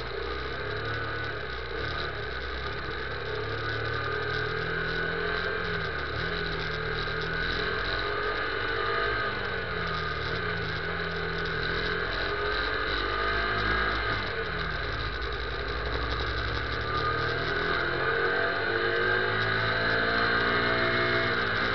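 Motorcycle engine running at low road speed, its pitch dipping and rising several times as the revs change, growing louder towards the end as it speeds up.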